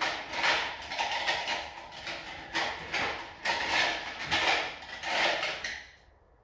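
Hand tools, bolts and metal parts clinking, rattling and scraping in irregular bursts while the upper hood latch is fitted and bolted on, dying away near the end.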